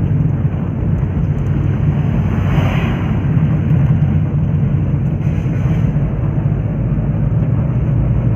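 Engine and road noise heard inside a moving vehicle's cabin: a steady low drone, with a brief rise in hiss between two and three seconds in.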